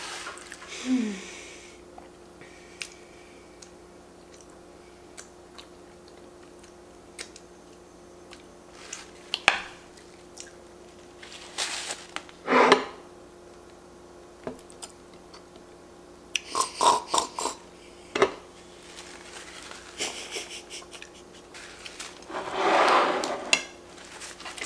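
Eating and table-handling sounds: scattered clicks and clinks of plates and cutlery, rustling of a paper wrapper, and chewing, with a few louder bursts of handling, the longest near the end as plates are moved. A faint steady hum lies underneath.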